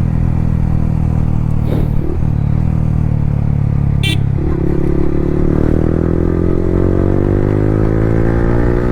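Yamaha R15 V3 single-cylinder motorcycle engine through an Akrapovic R9 exhaust with no dB killer. It runs at a steady pitch, then accelerates with the revs climbing steadily through the second half.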